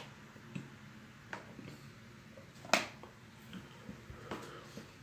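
Quiet room with a few faint clicks and taps from a small object being handled in the hands, and one sharp, brief click a little before three seconds in.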